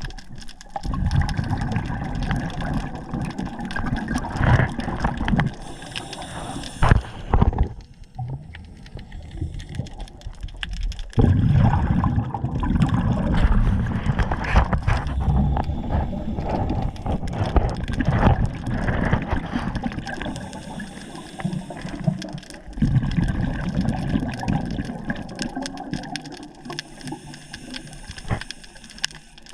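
Water sloshing and gurgling in irregular surges.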